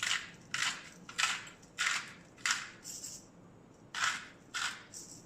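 Ordinary table salt being dispensed over raw fish, heard as a run of short gritty bursts about twice a second that thin out near the end.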